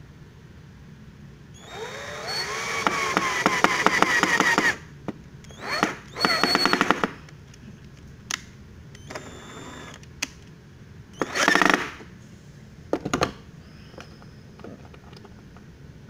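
Power drill running in bursts. One long run of about three seconds comes first, its whine rising as the motor spins up, with rapid clicking through it. Several shorter runs follow.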